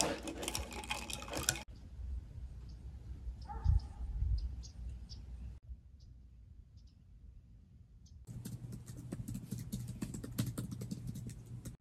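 Ice clinking as a drink is stirred in a glass, then brief low rumbles. From about eight seconds in comes fast clicking of typing on a laptop keyboard.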